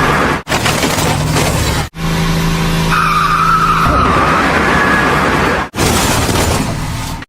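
An engine running, heard in several short clips cut together abruptly. Some clips hold a steady low drone, others a noisier rumble.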